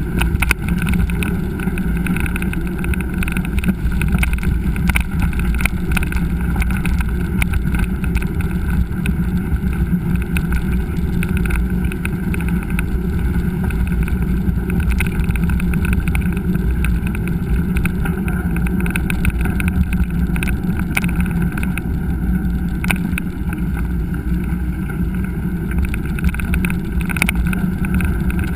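Steady wind rush and rumble on a bike-mounted action camera while riding a mountain bike on a trail, with scattered knocks and rattles from the bike over rough ground.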